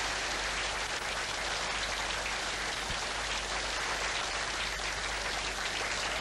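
Large audience applauding: many hands clapping together in a steady, even patter that tapers off just after the end.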